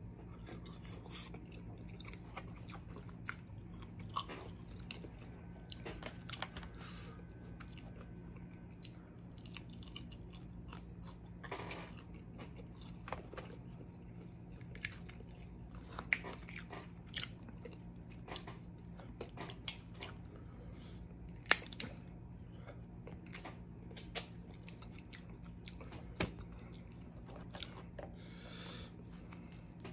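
Close-up chewing and biting while eating snow crab legs, broken by irregular sharp cracks and snaps of shell. Two loud cracks stand out in the last third.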